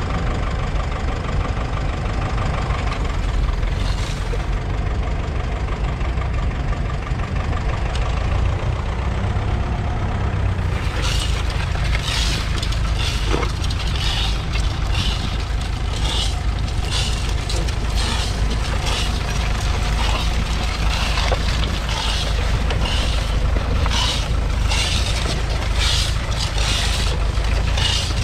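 1953 Ferguson TEF20's 2.1-litre four-cylinder diesel engine running steadily under load, pulling a plough through the soil. From about ten seconds in, a run of short crackling noises sounds over the engine.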